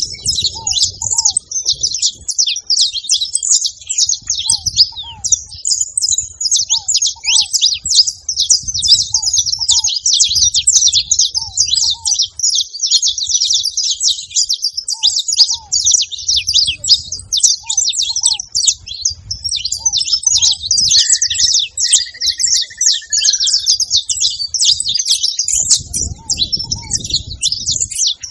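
A group of saffron finches chirping and singing together in a dense, continuous chatter of fast high notes.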